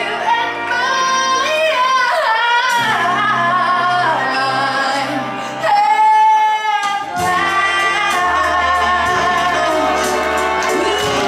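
A woman singing a slow stage song over band accompaniment in a theatre. About six seconds in she holds one long note, the loudest moment, while the bass drops away, and then the music comes back in under her.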